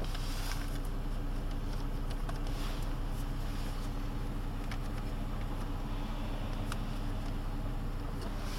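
Mercedes CLS 350's V6 idling, heard as a steady low hum inside the cabin, with a few light clicks from climate-control buttons being pressed.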